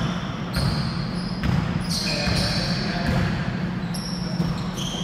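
Indoor basketball game: a basketball bouncing on the court several times and a few short, high sneaker squeaks, over a steady low hum, in a large echoing gym.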